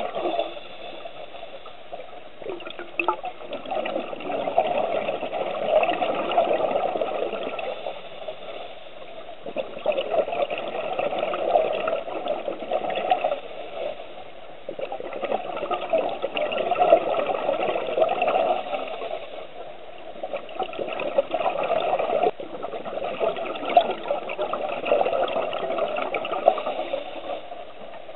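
Scuba divers' exhaled air bubbling from their regulators, heard underwater: bubbly surges a few seconds long that come and go in a breathing rhythm, roughly every five seconds.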